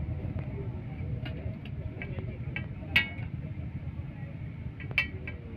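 Metal spatula striking a large steel tawa griddle in a few sharp, ringing clinks, the loudest about three seconds in and again near the end, over a steady low street rumble.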